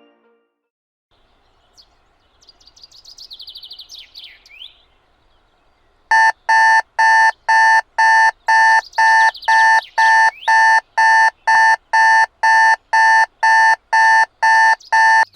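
Faint birdsong chirping, then an alarm clock beeping loudly about twice a second that cuts off abruptly near the end.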